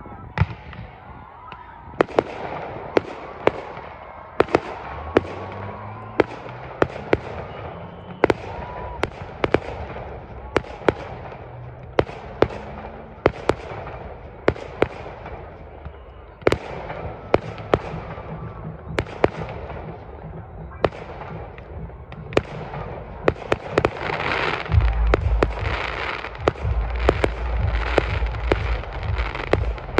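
Fireworks bursting one after another, a sharp bang about every second, each followed by a trailing echo. Over the last six seconds the firing turns dense, with crackling and a heavy low rumble.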